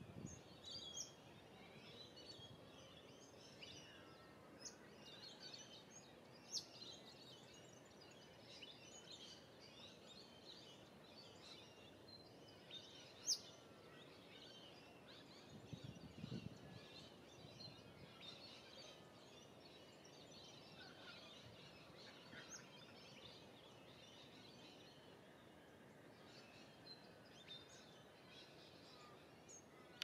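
Faint chorus of small birds chirping and twittering throughout, with a few sharper, louder chirps standing out. A brief low rumble comes about halfway through.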